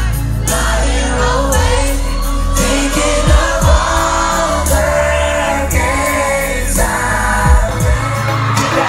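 Pop boy band performing live: sung vocals over loud amplified backing with heavy bass and a steady drum beat, heard from within the crowd through a phone's microphone.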